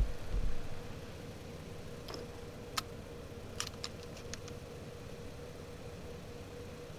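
Car engine idling steadily, with a brief low thump at the start and a few sharp metallic clicks between about two and four and a half seconds in.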